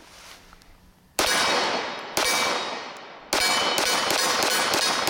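Gunshots from a Commander-size 1911 pistol, each with a long echoing tail. Three shots come about a second apart, then a quicker string of several more in the last couple of seconds.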